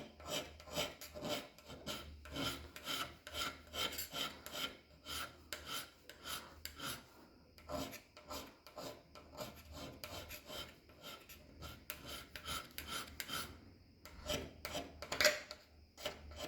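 Hand scraper being pushed across the cast-iron cross slide of a lathe in quick, repeated scraping strokes, several a second, softer for a few seconds in the second half. This is rough scraping to break up the high spots and add contact points on the sliding surface.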